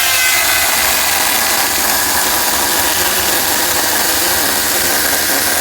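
Ryobi chainsaw held at full speed while its chain cuts through an oak log: a loud, steady rasp of chain in wood.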